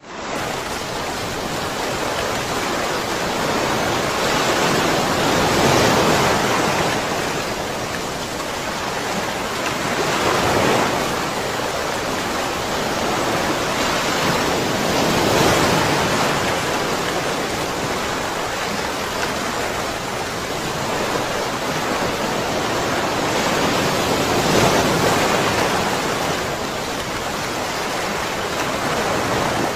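Rushing water: a continuous hiss that swells and eases about every four to five seconds.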